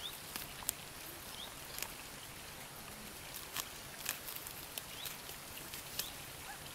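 Goats grazing close by, tearing and cropping leafy plants: irregular crisp snaps and rustles over a steady faint hiss, with a few short high chirps.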